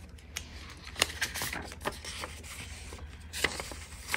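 Paper banknotes and the binder's clear plastic sleeve pages being handled: light rustling broken by several sharp clicks and taps.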